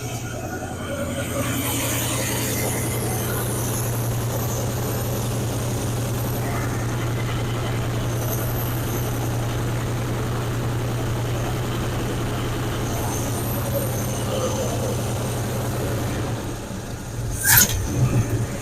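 1972 Chevrolet Cheyenne Super pickup's engine running steadily at idle while it runs poorly after fire damage, which the owner puts down to vacuum leaks. The running sound drops away near the end, followed by a sharp knock.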